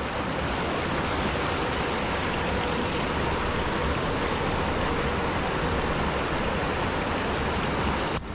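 Small rocky mountain creek running over stones in a steady rush of water close by. It cuts off abruptly near the end.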